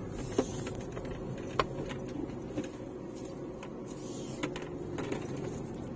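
Steady in-cabin hum and hiss of a Proton Saga 1.3 on the move, with engine, road and air-conditioning blower blended together. A few light clicks come through it.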